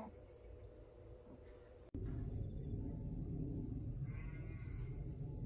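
Insects trilling steadily in a high, thin tone. About two seconds in, a louder low rushing noise comes in abruptly, and a short call sounds a little past the middle.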